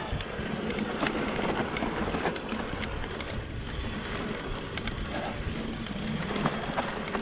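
Electric mountain bike ridden over a rough, rocky dirt trail: steady rushing wind noise on the mic, with frequent sharp clicks and rattles from the tyres and bike over the rocks.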